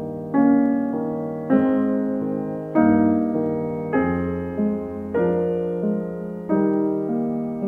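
Background piano music: slow chords struck about once every second and a bit, each ringing and fading before the next.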